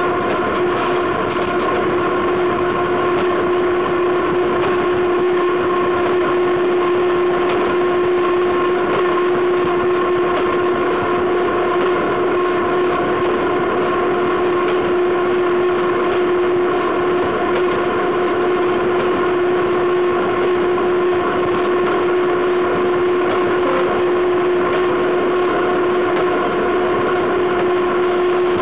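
Running gear of a freight train heard at wheel level while rolling at steady speed: a loud, unbroken rushing and rattling noise of wheels on rail, with a constant high-pitched tone running through it.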